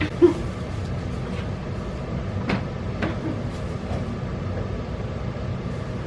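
A cat litter box being cleaned: a few light clicks and knocks of the scoop and the plastic box over a steady low hum. A brief sharp sound about a quarter second in is the loudest.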